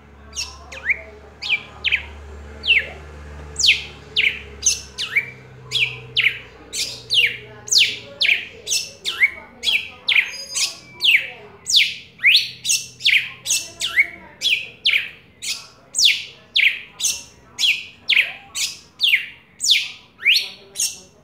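Red-cowled cardinal (galo-da-campina, Paroaria dominicana) singing a long run of loud, sharp notes, each sweeping steeply down in pitch, about two a second, a little more spaced out for the first few seconds.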